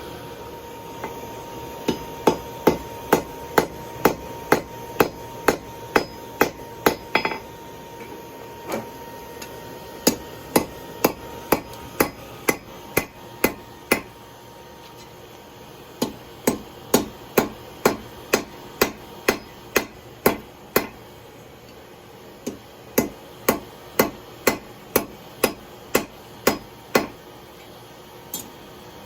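Hand hammer striking hot steel on an anvil, drawing out a taper on a fire poker tine: runs of steady blows at about two to three a second, broken by short pauses.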